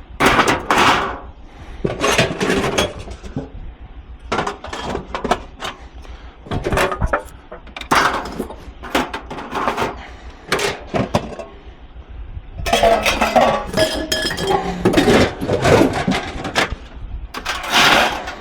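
Metal tins clinking and clattering against one another as they are taken out of a box and thrown aside, in repeated sharp knocks that are busiest in the last few seconds.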